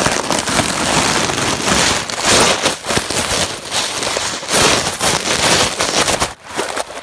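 Dry leaves loudly crackling and crunching right against the phone's microphone, a dense run of tiny crackles that stops abruptly shortly before the end.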